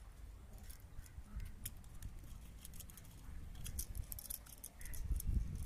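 Faint, scattered clicks and snips of small hand tools working on electrical wire and terminals, with a few soft handling thuds near the end.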